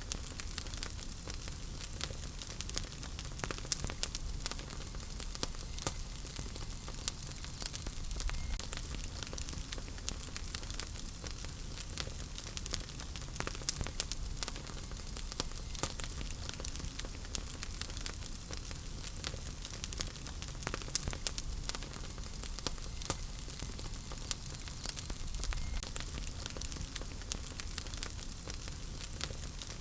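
Wood fire burning in a fireplace: a steady low rumble and hiss with frequent irregular sharp crackles and pops.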